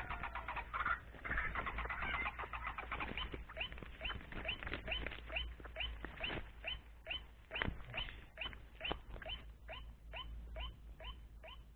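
White-breasted waterhen (male) calling: harsh, jumbled calls in the first second or two, then a steady series of short, falling notes at about three a second. There is a single knock about eight seconds in.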